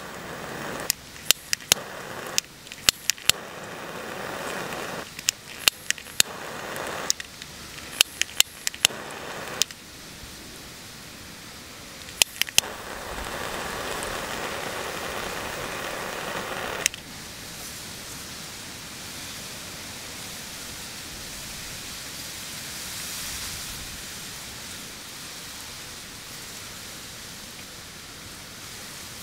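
A handheld lighter clicked again and again, several of the lights followed by a short hiss of flame. The last flame hisses for about four seconds and cuts off with a click, leaving a steady background hiss.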